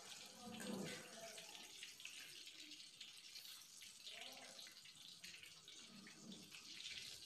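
Faint steady sizzling and crackling of cauliflower florets deep-frying in hot oil.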